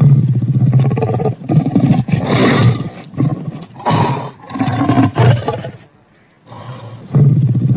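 Monster roar sound effects: deep, rough growling roars that start abruptly out of silence and come in repeated pulses, dropping away briefly about six seconds in before resuming.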